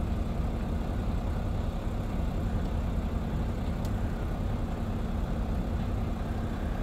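Heavy diesel truck engine idling steadily, a low even drone.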